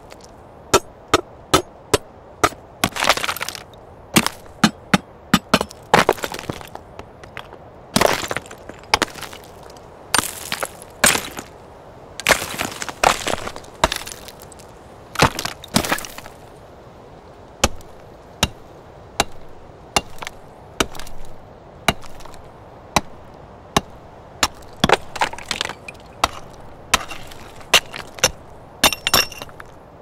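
A string of stone impacts, one after another: sharp cracks and knocks of stone striking stone, some breaking apart in a short crumbling spill of fragments, over a steady background ambience.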